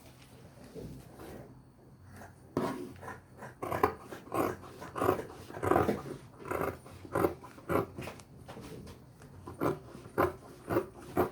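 Fabric shears cutting cloth: a run of short snips, about one or two a second, starting a couple of seconds in.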